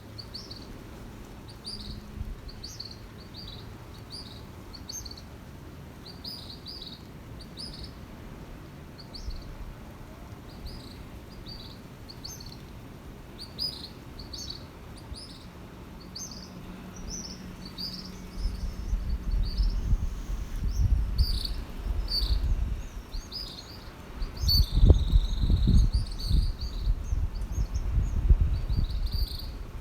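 Small birds chirping busily, short high chirps repeating several times a second. A low rumble on the microphone comes in about two-thirds of the way through and becomes the loudest sound near the end.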